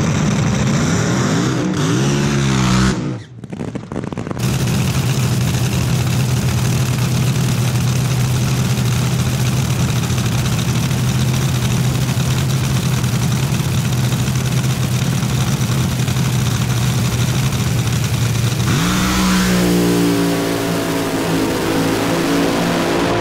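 Supercharged nitromethane-burning V8 engines of front-engine Top Fuel dragsters: an engine revs up in the first few seconds, then a long steady idle as the cars sit at the starting line. About 19 seconds in an engine revs up hard as a car launches down the track.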